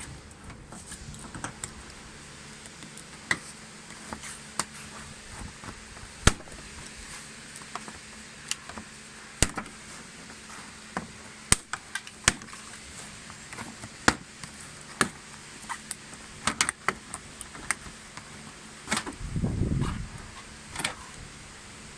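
Irregular sharp clicks and knocks of plastic trim covers and their fasteners being worked off the front of a car by hand, with a short low rumble near the end.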